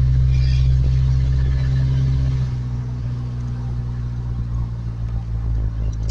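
1991 Ford Ranger pickup's engine running at a steady speed with a deep, even hum.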